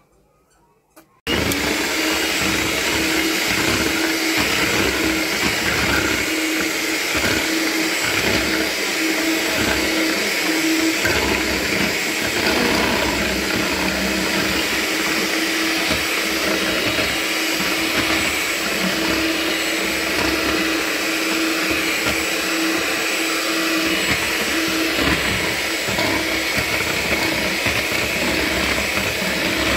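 Electric hand mixer switched on about a second in, then running steadily at one speed, its twin beaters whisking thin, runny batter in a bowl.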